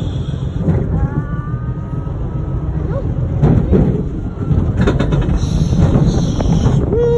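Small roller coaster car running along its track: a steady rumble and wind noise from the ride, with a long steady tone near the end.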